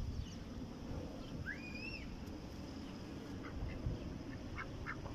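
Ducks on a pond calling: one rising-and-falling call about a second and a half in, then a quick run of short quacks near the end, over low wind rumble on the microphone.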